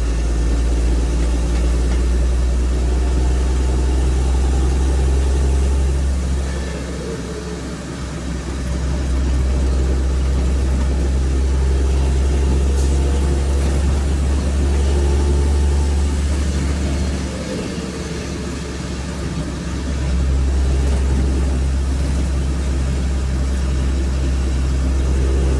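Engine and road drone of a moving vehicle heard from inside its cab, a steady low rumble. It eases off twice for a couple of seconds, as when the driver lifts off the throttle, then picks up again.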